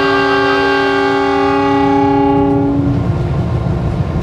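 Horn of a CC 206 diesel-electric locomotive sounding one long blast, several tones at once, that cuts off about three seconds in, over the steady low rumble of the running train.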